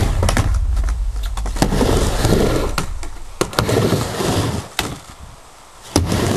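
Skateboard rolling back and forth on a mini ramp: a low wheel rumble broken by sharp clacks of the board and trucks. The rolling dies away about three-quarters of the way through, and a single sharp clack comes just before the end.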